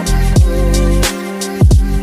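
Background music with a steady beat: deep kick drum, bass and electronic tones.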